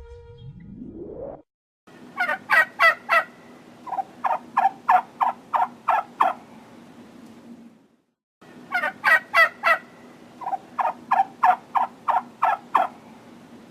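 Domestic turkey gobbling: two bouts of rapid rattling gobbles, each a few loud notes followed by a quicker run of about eight. A short rising sweep comes first, in the opening second.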